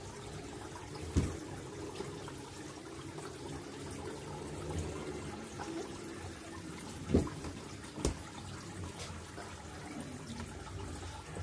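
Water trickling steadily in a fish tank, with three knocks: one about a second in and two close together past the middle.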